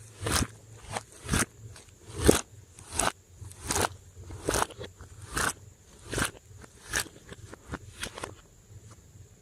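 Slime being mixed, giving off crackling, popping bursts in a steady rhythm, a little more than once a second.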